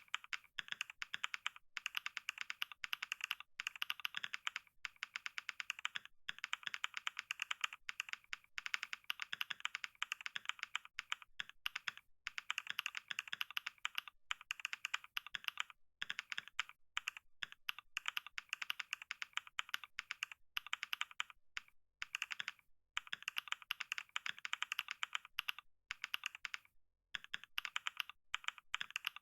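Computer keyboard being typed on fast and continuously, a rapid run of key clicks broken by a few brief pauses.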